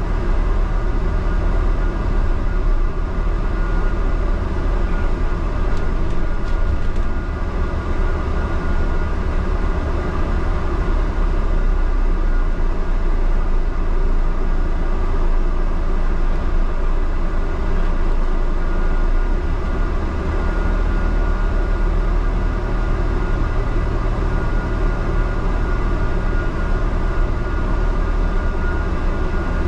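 Steady low rumble of a moving double-decker bus heard inside on its upper deck, with a faint steady high tone over it.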